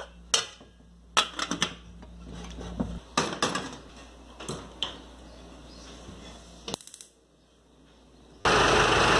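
A few sharp metallic clanks and clicks from an aluminium lid going onto a steamer pot and a gas stove knob being turned. Near the end, after a brief silence, a loud steady rushing noise sets in.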